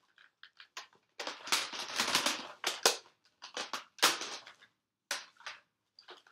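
Plastic Nerf blaster parts being handled: a quick run of sharp clicks, then longer clattering rattles and a few more clicks.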